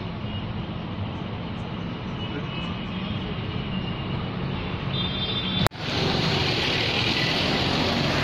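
Street traffic noise: a steady hum of motor vehicles on a town road. It breaks off abruptly a little over five seconds in at an edit and comes back louder.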